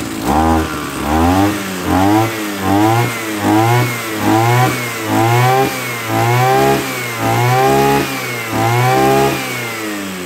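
Kawasaki TG33 33cc two-stroke brush cutter engine revved in a series of quick throttle blips, about one a second. Each blip climbs in pitch and drops back, and the later blips are held a little longer before it settles back toward idle near the end.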